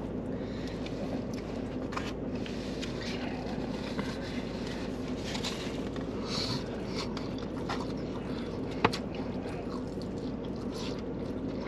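Eating sounds: soft chewing, rustling and light clicks of utensils and a takeout food container, with one sharper click about nine seconds in, over a steady low hum.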